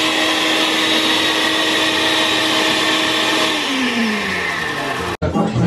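Countertop blender running steadily, pureeing cooked tomatillos into a chile salsa. About three and a half seconds in it is switched off, and the motor winds down with a falling pitch. Near the end it cuts to music.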